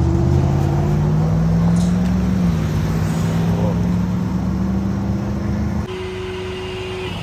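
Car engine accelerating, its pitch climbing steadily, dipping about two and a half seconds in as it shifts up, then climbing again. The sound changes abruptly near the end to a quieter scene with a steady tone.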